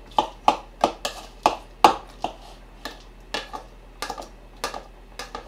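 A metal spoon clinking against a ceramic bowl as it tosses and mixes seasoned glass noodles: a quick, uneven run of light clinks, about three a second, louder in the first two seconds.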